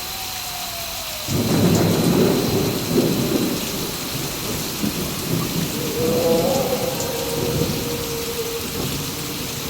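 Steady rain, with a sudden clap of thunder about a second in that rolls on for several seconds. Wolves howl over it: one long howl falls away at the start, and another long, steady howl comes in about six seconds in.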